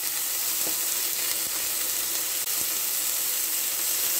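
Chicken tenderloins sizzling steadily in bacon fat in a frying pan, a high, even hiss of frying.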